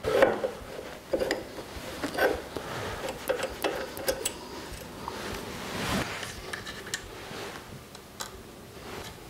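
Ring spanner working the main jet fitting on a motorcycle carburettor, with small metal parts handled: a scatter of light metallic clicks and taps.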